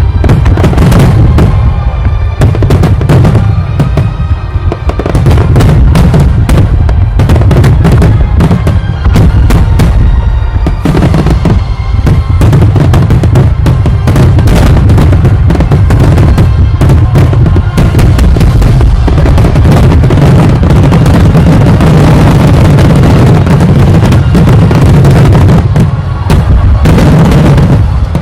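A continuous barrage of fireworks: many rapid bangs and crackles over a deep booming rumble, so loud the recording is overloaded.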